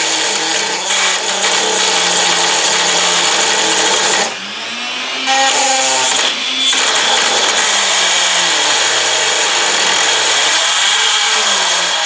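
Dremel rotary tool running with a small cutting disc grinding against a tiny aluminium wheel spun on a nail, turning it round. A steady high-pitched grinding whine over a motor tone whose pitch wavers with the load, briefly dropping quieter about four seconds in.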